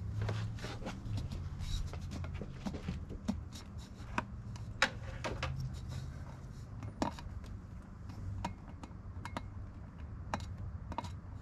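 Hands working in a car's engine bay during an intake install: scattered small clicks and knocks of parts being handled, the sharpest about five seconds in and again at seven, over a low steady hum.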